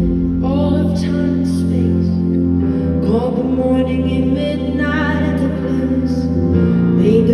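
Live band music played over an arena's sound system, heard from the audience: held chords with a singing voice over them, the chords changing about two and a half seconds in and again near the end.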